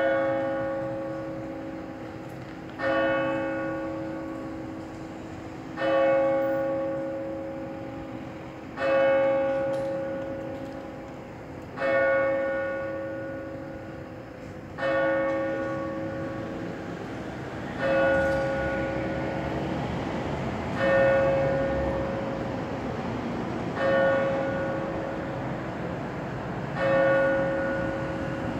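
Church tower bell striking the hour: single slow strokes about every three seconds, ten in a row, each ringing on and fading before the next.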